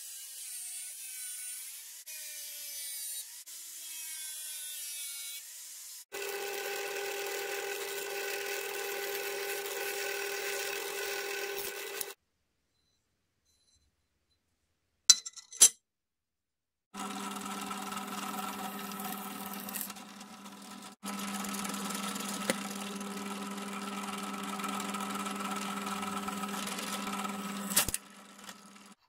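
Angle grinder cutting into a steel table saw blade, its pitch wavering under load, in short passes for about six seconds. Then a drill runs steadily for about six seconds. After a silent gap with two sharp clicks, a drill press runs steadily for about eleven seconds, boring holes through the steel plate.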